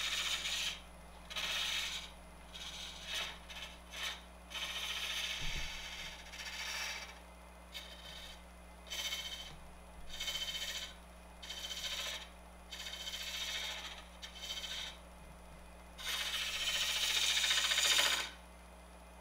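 Small round-nose scraper cutting a spinning wooden bottle blank on a wood lathe: a dozen or so scraping hisses, each a second or two long, with short pauses between passes and the longest near the end. The lathe motor hums steadily underneath.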